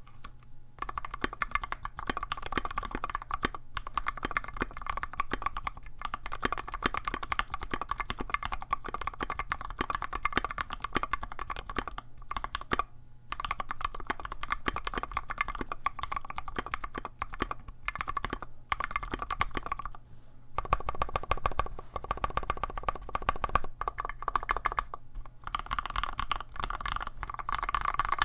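Typing test on a Tofu60 mechanical keyboard with Gateron Red Ink linear switches, TaehaTypes OSA keycaps and foam inside the case: a fast, continuous clatter of keystrokes broken by a few short pauses.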